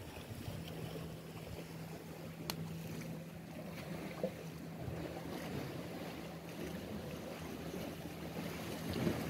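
Sea waves washing against a rocky shore with wind buffeting the microphone, and a faint steady low hum through most of it. A single sharp click about two and a half seconds in.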